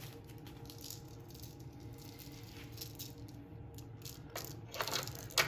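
Faint rattling and clicking of a new Briggs & Stratton recoil starter clutch being handled, with a few sharper clicks near the end, over a low steady hum.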